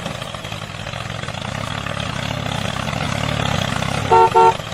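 A vehicle engine running steadily, with two short horn toots in quick succession near the end.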